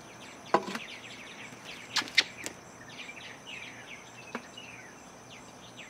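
Scattered sharp clicks and creaks from a black collapsible plastic stool straining under about 400 pounds of cinder blocks and weight plates.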